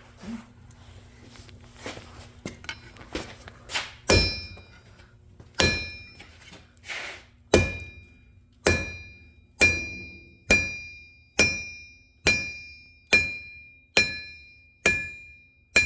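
Hand hammer striking hot steel on an anvil: about a dozen blows, each ringing with a clear metallic tone, starting about four seconds in after a few lighter clinks and settling into a steady beat a little under a second apart. The blows are flattening the heated end of a steel bar.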